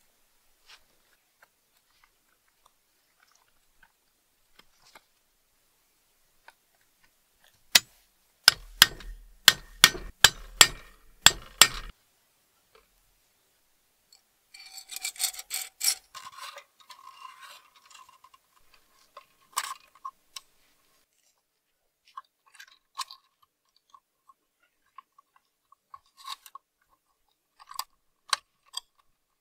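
Thin perforated sheet-metal lantern part being handled and bent by gloved hands: scattered light clicks and ticks, a quick run of sharp metal clicks between about eight and twelve seconds in, and a crinkling rustle a few seconds later.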